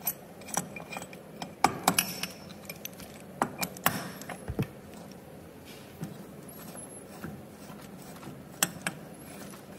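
A steel jaw puller's arms and threaded rod clinking against the transfer case's gear teeth and housing as the puller is fitted over a blind bearing puller: scattered light metal clicks and taps, busiest in the first few seconds and again near the end.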